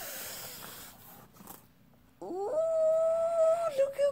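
Paper packaging rustling briefly, then a woman's long, high, held "ooooh" of delight that begins about halfway through and is held steady.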